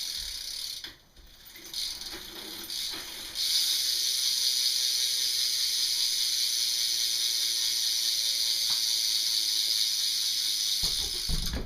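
BMX rear hub's freewheel ratchet buzzing as the rear wheel spins freely: two short spins, then a long steady buzz from about three and a half seconds in that stops near the end with a low thump.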